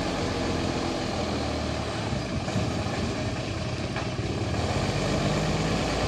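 Heavy container truck's diesel engine running steadily at low revs as the truck turns slowly, with a steady low hum throughout.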